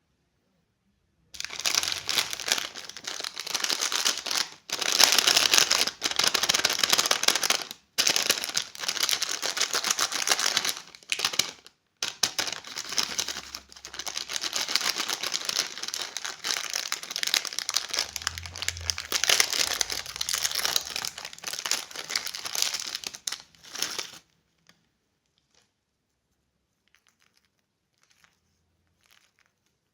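Crinkly plastic candy wrapper being handled and crumpled, continuously with a few brief pauses, stopping about four-fifths of the way through.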